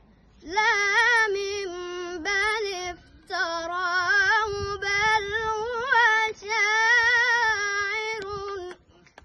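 A boy's voice chanting Quran recitation in long melodic phrases, with held, wavering notes and short breaks between them; it stops near the end.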